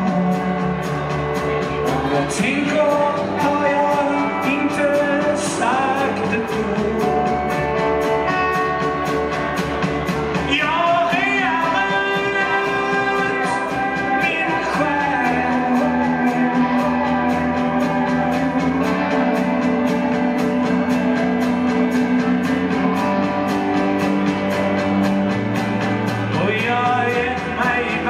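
Live rock band playing with electric guitars, bass and a steady drumbeat, a male singer singing into a handheld microphone over it.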